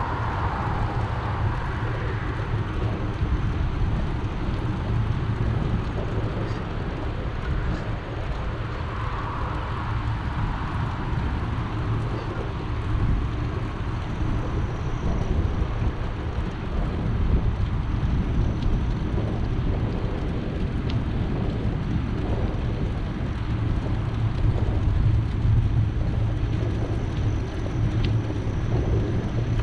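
Steady, deep wind noise buffeting the microphone of a camera on a moving bicycle, mixed with the bike's tyres rolling along the trail.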